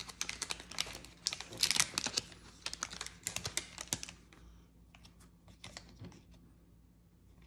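Wax-paper wrapper of a 1990 Fleer basketball card pack crinkling and crackling as it is peeled open by hand, dense for the first four seconds, then only a few scattered crackles.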